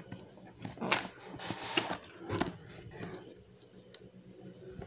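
Handling noise from a plastic compressor nebulizer unit, switched off, being turned over in the hands: a few rustles and light knocks of plastic, clustered in the first half.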